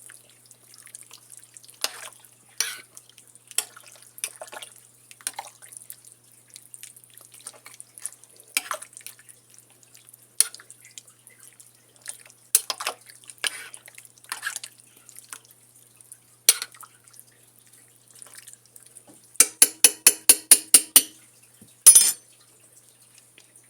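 A spoon stirring thick, creamy chicken and noodles in a crockpot, making soft wet clicks and scrapes. Near the end, the spoon is knocked quickly against the pot's rim about eight times with a ringing tap, then there is one louder clank.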